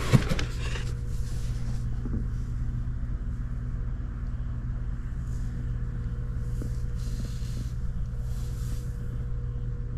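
A steady low hum runs throughout, with a few soft scuffs and rustles and a brief clatter at the start.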